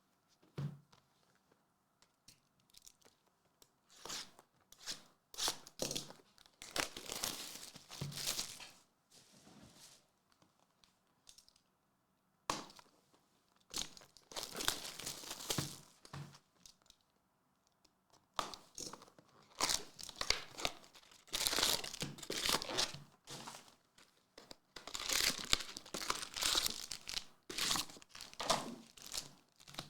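Plastic wrapping on SP Authentic hockey card boxes and packs being torn open and crinkled, in several spells of rustling with short pauses between.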